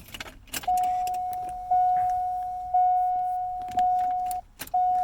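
Keys jingling as the key goes into the ignition of a 2001 Chevrolet Corvette (C5), then the car's warning chime sounding as a steady tone that restarts about once a second, with a brief break near the end.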